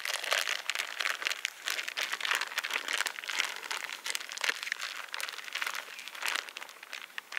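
Plastic zip-lock bag crinkling in irregular crackles as flour-and-water dough is kneaded inside it by hand.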